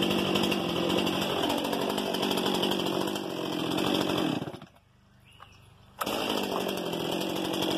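Brand-new Stihl MS 261 C-M chainsaw's two-stroke engine running steadily during its first break-in. It dies away about four and a half seconds in, and after a second and a half of near silence it is suddenly running steadily again.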